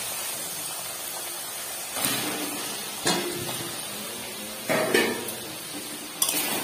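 Spice paste sizzling in a karahi while fried potato chunks are tipped in and stirred with a spatula, giving a few sharp knocks and clatters against the pan over the steady sizzle.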